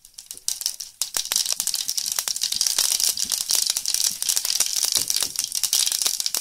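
Mustard seeds spluttering in hot sunflower oil: a dense crackle of popping seeds that starts about a second in. The spluttering shows the oil is hot enough for tempering.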